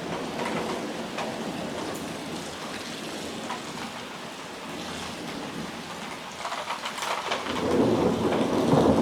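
Rain falling steadily through a thunderstorm, with a rolling rumble of thunder building up and growing louder in the last few seconds.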